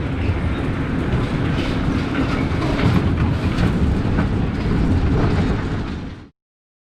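Mack Rides steel bobsled roller coaster car rumbling and rattling along its track, heard from on board, with scattered clicks; the sound cuts off abruptly about six seconds in.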